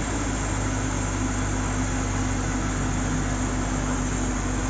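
Borewell rig's truck-mounted air compressor and its engine running steadily, a constant low hum with an even noise over it.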